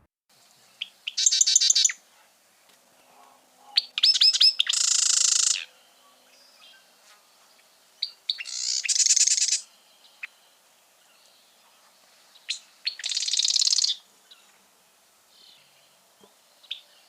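Marsh wren singing: four short song bouts a few seconds apart, each a few sharp notes running into a high, buzzy, rattling trill.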